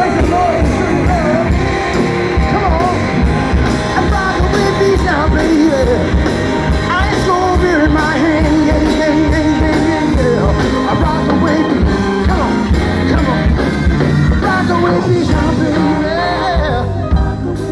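Live band playing: a saxophone solo over a steady drum beat and bass.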